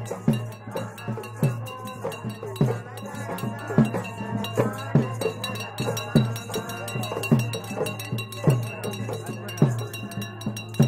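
Ritual drumming: heavy drum strokes about once a second, each dropping in pitch, with lighter strokes in between, over a wavering higher tone and a steady high ringing.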